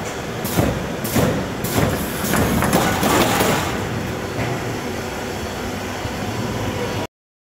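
Automatic carton partition assembling machine running, with a run of sharp clattering knocks about twice a second for the first few seconds, then steadier machine noise that cuts off suddenly near the end.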